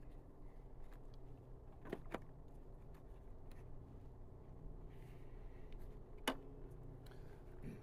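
Quiet outdoor background with a low steady hum, broken by a few faint clicks and knocks from handling; a sharp click about six seconds in is the loudest.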